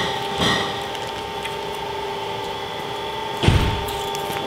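Steady two-tone hum of running brewery equipment, with a single sharp knock about three and a half seconds in.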